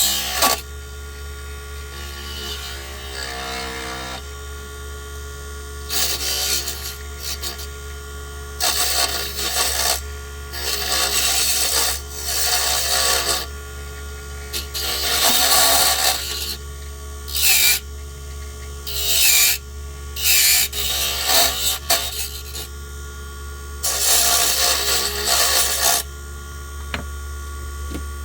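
Small wood lathe motor humming steadily while a tool is pressed again and again against the spinning wooden lure blank, giving loud scraping passes of a second or two each with short breaks between.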